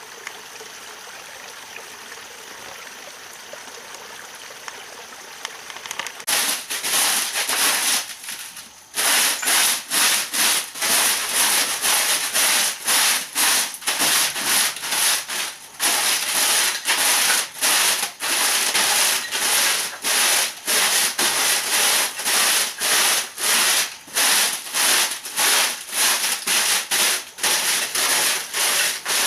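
A hand tool rasping back and forth on wood in steady strokes, about two a second, starting about six seconds in after a faint hiss.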